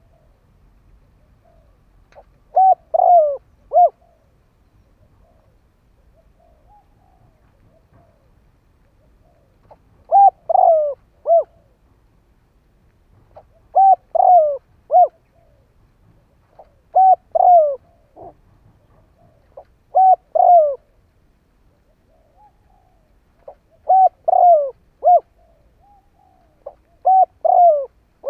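Spotted dove cooing: phrases of three or four short coos, each falling in pitch, repeated every few seconds, with a few faint, softer notes between. It is a decoy bird's call, used to draw wild doves in.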